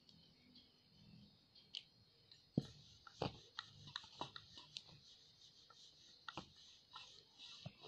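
Wooden rolling pin rolling out a small ball of dough on a board: faint, irregular clicks and light knocks, over a faint steady hiss.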